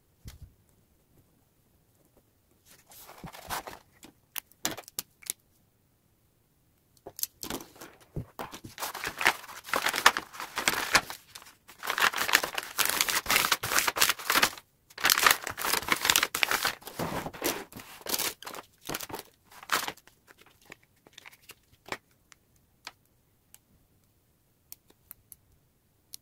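Kraft wrapping paper being handled and folded by hand, crinkling and rustling in a short burst a few seconds in, then in a long dense stretch through the middle with a brief pause, fading to a few faint ticks near the end.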